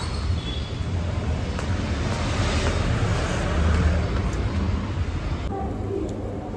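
Steady street traffic rumble and general city noise. About five and a half seconds in it cuts to a quieter, steady indoor room tone.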